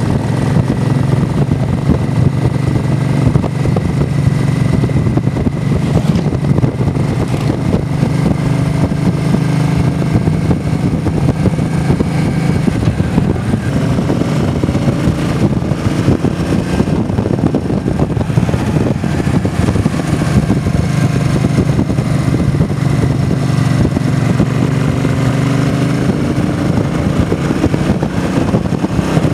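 Motorcycle engine running steadily at road speed under heavy wind noise, its note rising and falling a little with speed.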